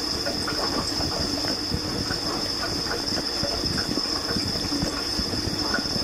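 Dishwasher running its wash cycle: water spraying and splashing against the dishes and tub in an irregular patter, over the pump's steady hum and a steady high whine.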